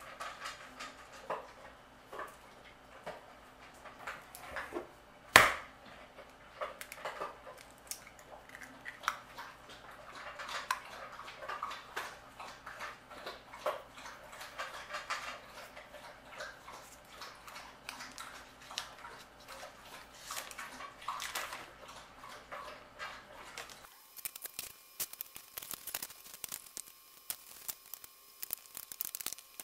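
Kitchen handling sounds while mixing cookie dough in a plastic bowl: one sharp knock about five seconds in, then a long run of small clicks and scrapes. Near the end it changes to quieter, softer handling of the dough.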